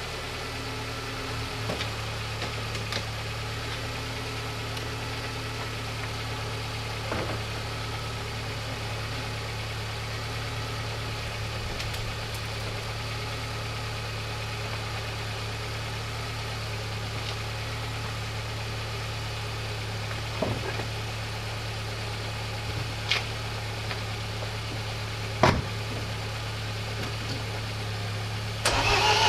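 A steady low engine-like hum, like an engine idling, with a few short sharp clicks; the loudest click comes about 25 seconds in.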